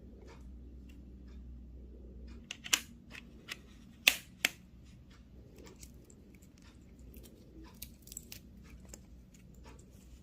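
Handling noise: scattered light clicks and taps, with four sharper knocks between about two and a half and four and a half seconds in.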